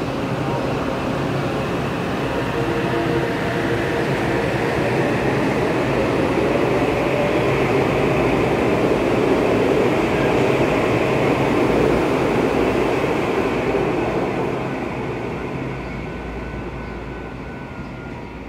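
Metro-North M8 electric multiple-unit train pulling out and accelerating away from the platform. Steady motor tones at first give way to a growing rush of motor and wheel noise as the cars pass, loudest about ten seconds in, then fading as the train draws away.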